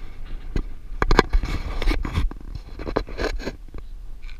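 Wind rumbling on the GoPro's microphone, with scraping and knocking handling noise from the camera being moved, loudest in a cluster of scrapes about a second in and again near three seconds.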